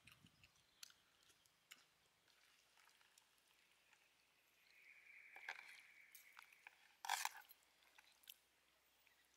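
A metal spoon scraping and tapping against a steel plate while picking flesh off a steamed fish, with small scattered clicks, a longer scrape a little past halfway, and one sharper, louder clink about seven seconds in.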